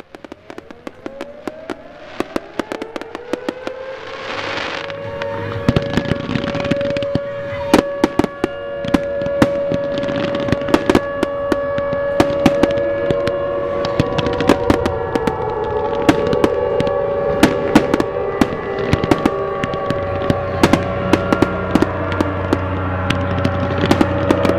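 Aerial fireworks display going off in a dense barrage: rapid sharp bangs and crackling, with long shrill whistling tones over them. It builds up over the first few seconds and then stays loud.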